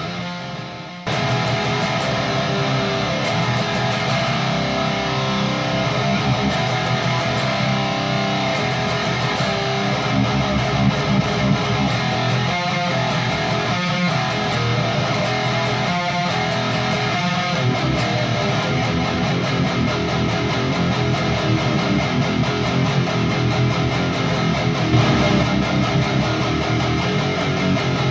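Heavily distorted electric guitar from an ESP LTD Eclipse played through a Peavey 6505 II high-gain tube amp, playing rhythmic metal riffs with many sharp, chugging attacks. A held sound fades out, and the riffing starts again about a second in.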